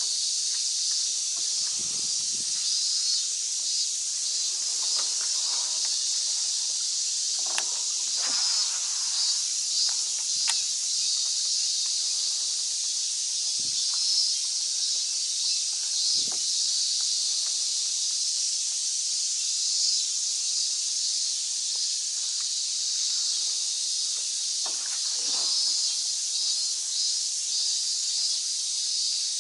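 A dense insect chorus fills the air with a steady, high-pitched shrill drone that has a fine pulsing texture. A few faint knocks come through now and then.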